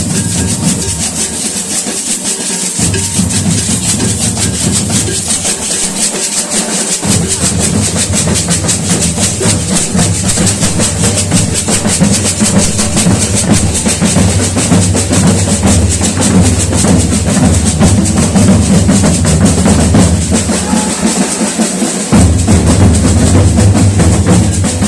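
Loud drum-heavy music with a driving beat, bass and snare, the bass dropping out briefly a few times.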